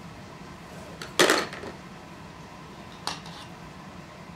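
Hand tools clattering as they are handled and set down in a toolbox: a loud rattling clatter about a second in, then a lighter knock about three seconds in.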